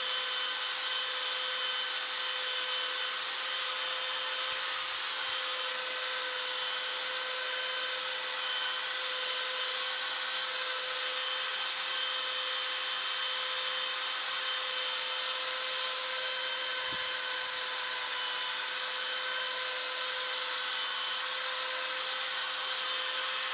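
Electric drill running at a steady speed with a constant whine, driving a 3M sanding disc against a headlight lens to strip the dull, oxidised surface.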